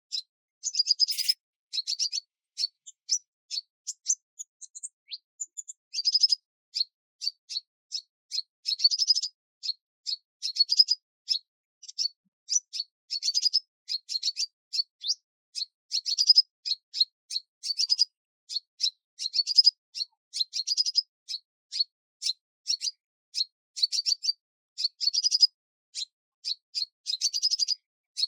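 A small bird chirping over and over in short, high notes, a few a second in quick runs.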